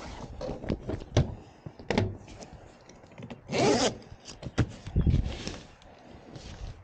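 Fabric rear panel of a Softopper soft truck-bed topper being pulled shut and zipped. A zipper run about three and a half seconds in is the loudest sound, among rustling fabric and several sharp knocks.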